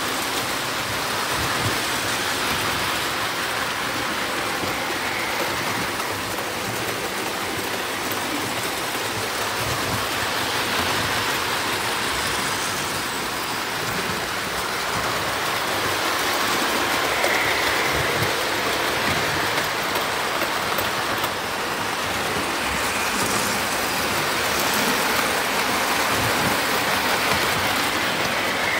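Several tinplate toy trains, standard gauge and O gauge, running together on their track loops. Their wheels make a steady rolling rumble and clatter over the metal rail, gently growing and easing as the trains come round.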